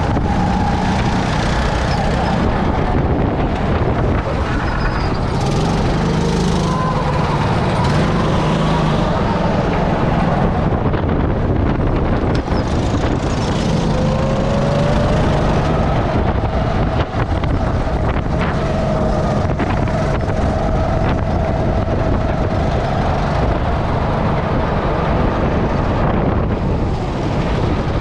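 Onboard sound of a go-kart engine running on track, its note falling in the first few seconds, climbing again about halfway through and then holding fairly steady, over a constant rumble and wind noise on the microphone.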